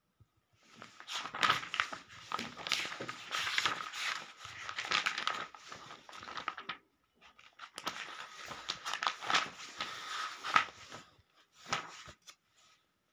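Pages of a thick printed book being flipped through quickly, paper rustling and flapping as the leaves fall, in two long runs with a short pause about seven seconds in, then one brief flick near the end.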